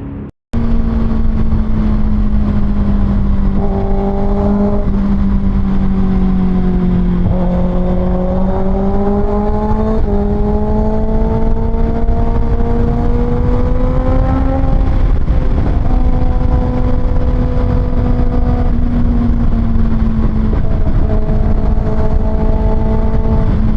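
Kawasaki Ninja ZX-6R's 636 cc inline-four with an Austin Racing exhaust, heard from the rider's seat on the move. The engine note holds steady, climbs slowly for several seconds past the middle, drops a little about two-thirds of the way in, then holds steady again.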